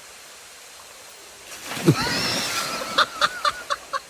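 Steady rush of a small waterfall, then about one and a half seconds in a loud splash as someone drops into the plunge pool.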